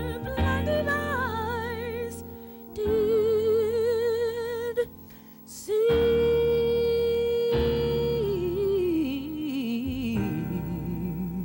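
Gospel song: a voice holding long wordless notes with vibrato over instrumental accompaniment. Near the end the voice runs down in pitch and settles on a low held note.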